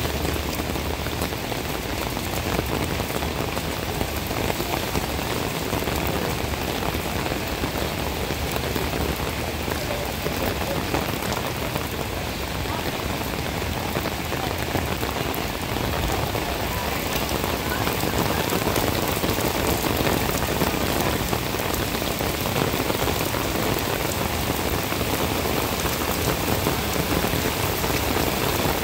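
Heavy summer rain shower pelting down on wet stone paving: a dense, steady hiss and patter of drops, a little louder in the second half.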